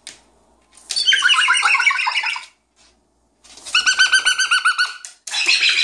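Cockatoo calling in three bouts of rapid, stuttering chatter, each about a second and a half long, with short pauses between.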